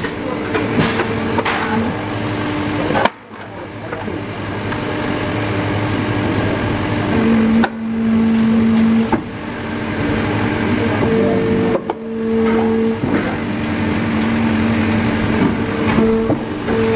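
Plastic injection moulding machine running a full-face helmet mould: loud steady machine noise with a low pitched hum that switches on and off several times through the cycle. The sound drops out briefly about three seconds in.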